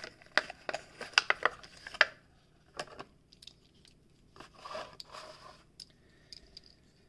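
Plastic blister packaging crackling and crinkling as a die-cast toy truck is pulled free of it, a dense run of sharp crackles for about two seconds. Then a few light clicks and rustles of handling.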